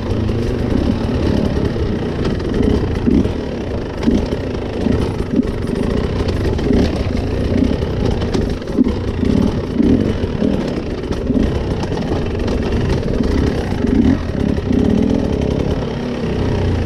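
Enduro motorcycle engine revving in short, uneven blips of the throttle, again and again.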